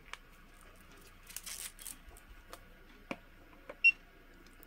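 Soft handling noise of multimeter test leads and probes being set onto a button-cell battery: light rustling and a few small clicks, then a short high beep near the end.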